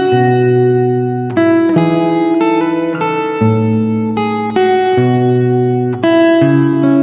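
Background music: acoustic guitar strumming chords that change about once a second.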